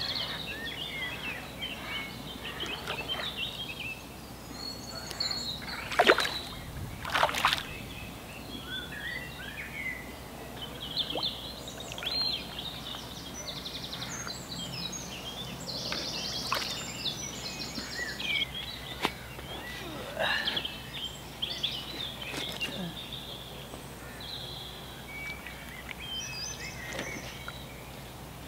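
Woodland birds singing throughout, with two loud splashes about six and seven seconds in as a hooked tench is brought to the landing net.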